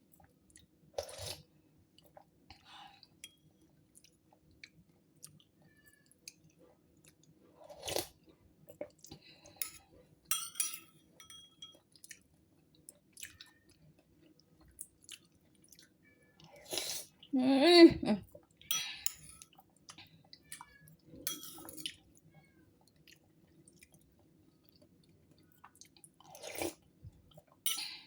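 A person eating papaya soup: sporadic chewing and mouth noises with scattered small clicks, separated by quiet gaps. About two-thirds of the way through comes one brief, louder pitched sound.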